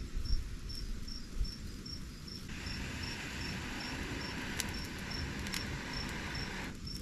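Crickets chirping in a steady, even rhythm of about two to three chirps a second, over a low rumble. A soft rushing noise joins in about two and a half seconds in and stops just before the end.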